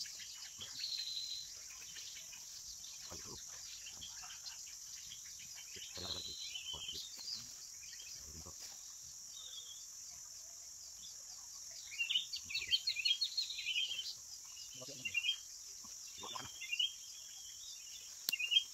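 Steady high-pitched drone of insects such as crickets, with birds chirping and twittering, mostly in the second half. A few soft knocks are heard now and then.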